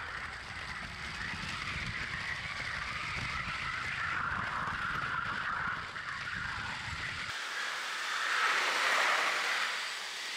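3D-printed high-speed toy train running fast on its plastic track, heard from a camera riding on it: a steady rumble from the wheels with a higher whir from the drive. About seven seconds in the rumble drops away, and a whirring rises and fades as the train goes past.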